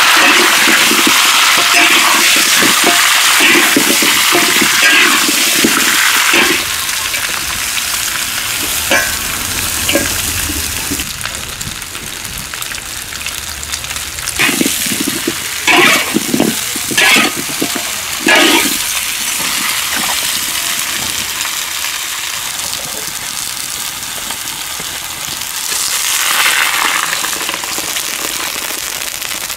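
Pumpkin chunks sizzling in a hot iron wok, loudest at first. In the middle, a metal spatula scrapes and tosses them in several sharp strokes. Near the end, water poured into the hot wok sets off a fresh hiss.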